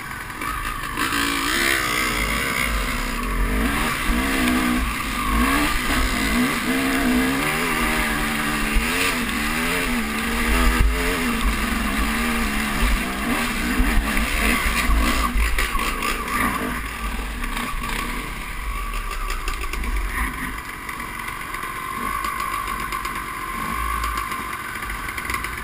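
Honda CR250 two-stroke dirt-bike engine working up a rough trail, its pitch rising and falling repeatedly with the throttle for the first half, then steadier. Heavy wind rumble on the helmet-mounted microphone throughout.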